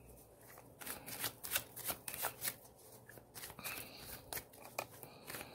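A deck of tarot cards being shuffled by hand, the cards slapping against each other in quick, uneven clicks.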